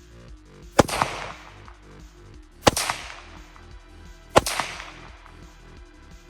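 Three unsuppressed shots from a PSA Rock pistol in 5.7x28mm, about two seconds apart, each a sharp crack with a ringing echo that dies away. Faint background music with a steady beat underneath.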